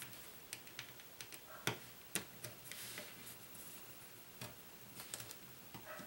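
Faint, scattered clicks and ticks of a small screwdriver and tiny screws being worked out of a Nexus 4 phone's plastic inner cover, with two sharper taps about two seconds in.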